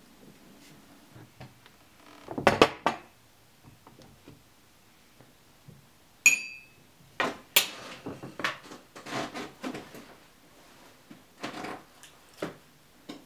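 Ceramic coffee mugs knocking as they are set down on a wooden table, then a metal spoon stirring coffee in a ceramic mug: one ringing tap on the mug, then a run of quick clinks.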